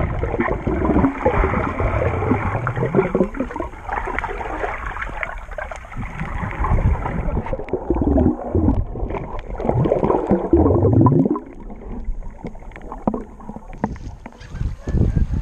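Muffled underwater water noise heard through a camera's waterproof housing: gurgling and sloshing with low sweeping swells, with the top end cut away, more so about halfway through.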